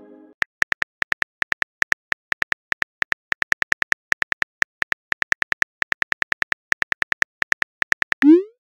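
Simulated phone-keyboard typing sound from the TextingStory chat app: a rapid, uneven stream of short clicks as a message is typed out. Just before the end, a short rising pop as the message is sent.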